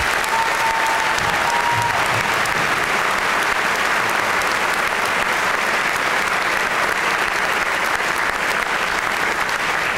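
Large audience applauding, a steady dense clapping that swells up at the start and holds.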